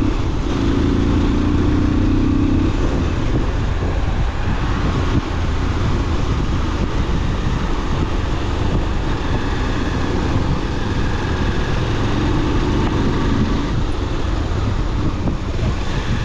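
Motorcycle engine running steadily as the bike rides along, with wind rushing over the microphone. An engine hum stands out near the start and again about three quarters of the way through.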